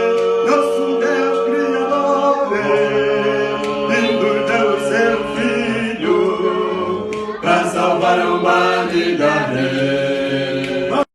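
A small group of voices singing a cappella in harmony, holding long sustained chords of a gospel praise song. The singing stops abruptly near the end.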